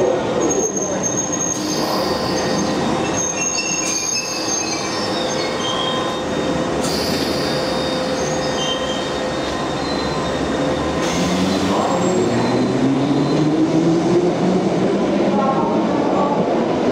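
London Underground D stock train moving along the station track, its wheels squealing in high, thin tones on the rails. Later its motor whine rises steadily in pitch as it picks up speed, with the echo of the underground platform around it.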